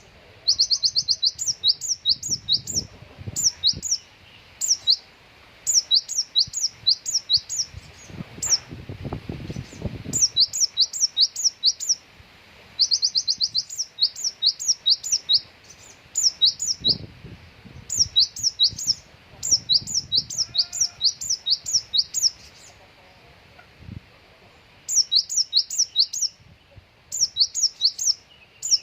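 A konin songbird singing quick runs of sharp, high, rising chirps in bursts of one to three seconds, with short pauses between them. It is a masteran song laced with gelatik-style phrases.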